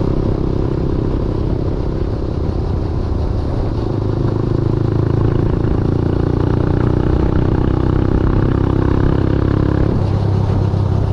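Motorbike engine running steadily while riding, with a change in its note about ten seconds in.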